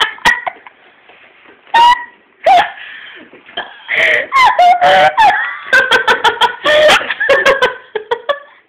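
A girl laughing hard in repeated high-pitched bursts, two very loud ones about two seconds in, then nearly unbroken laughter from about four seconds in that stops just before the end.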